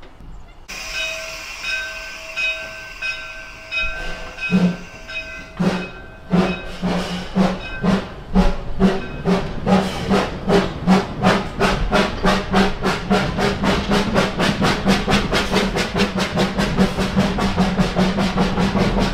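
1910 Vulcan 0-4-0 narrow-gauge steam locomotive getting under way up a steep grade, its exhaust chuffing in sharp, even beats that speed up from about three to about five a second. For the first few seconds before the chuffing starts, a steady high-pitched tone is heard.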